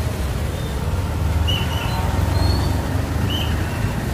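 Steady low rumble of road traffic, with two short high chirps, one about a second and a half in and one near the end.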